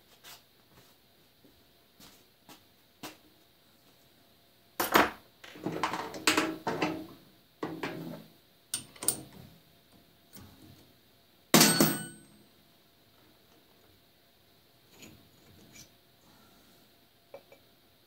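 Steel tooling clinking and clanking against the lathe's tool post while a cutoff tool is fitted, a scatter of separate metal knocks. The knocks bunch together near the middle, and the loudest comes about two-thirds through with a short ring; the lathe itself is not running.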